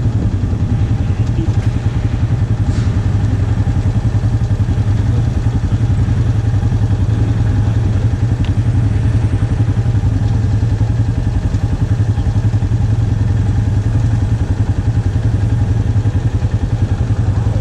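Polaris ATV engine idling steadily.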